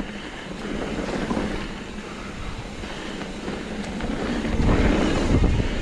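Wind rushing over the microphone and mountain bike tyres rolling on a dirt singletrack during a downhill run, growing louder about four and a half seconds in.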